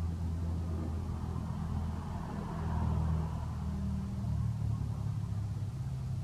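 An engine running steadily with a low hum, its pitch shifting slightly about halfway through.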